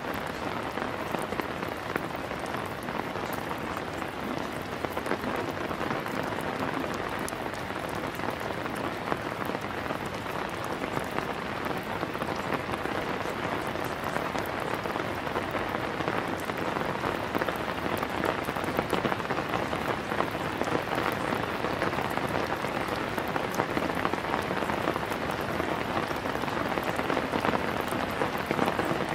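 Steady rain, a dense even patter of drops, with no change through its length.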